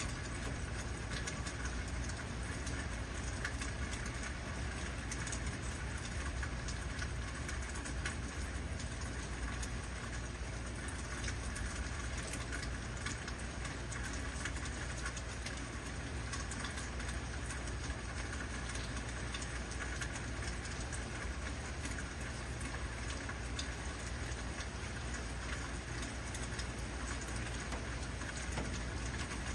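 Heavy rain falling steadily, a dense even hiss with a constant low rumble beneath and many small drop ticks on top.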